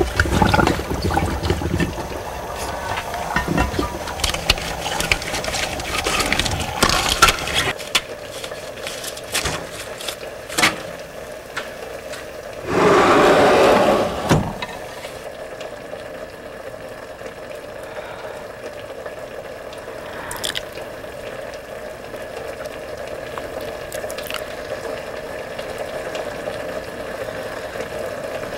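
Water splashing and handled in glass jars, with a louder rush of pouring water lasting about two seconds around the middle, then a steady hum with a few light clicks.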